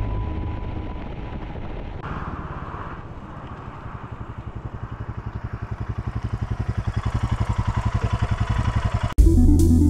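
Royal Enfield Himalayan's 411 cc single-cylinder engine running with a steady, even exhaust beat that grows louder over the last several seconds. Music cuts in suddenly near the end.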